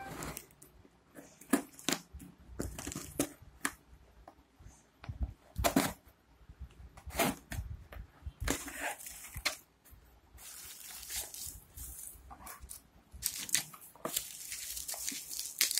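A cardboard shipping parcel being opened by hand: packing tape poked and torn with a pen, and cardboard scraping and rustling in irregular sharp strokes. Near the end, plastic bubble wrap crinkles as the wrapped box is handled.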